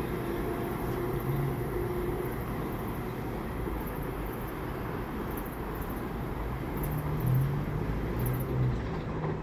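LIRR M7 electric multiple-unit train pulling away down the line, heard as a distant rumble with a faint hum that fades out about two seconds in, over steady traffic noise.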